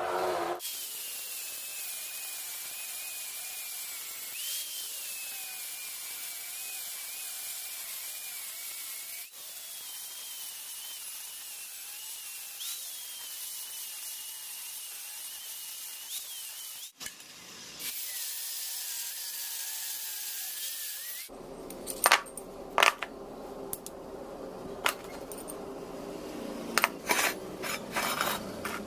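A small power tool running steadily with a high, wavering whine and hiss, broken by cuts. About three quarters of the way through, it gives way to a series of sharp metal clinks and taps.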